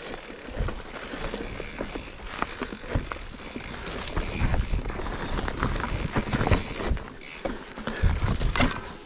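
Mountain bike riding over a rough dirt trail: rolling tyre noise and low rumble with irregular clattering knocks and rattles as the bike goes over bumps.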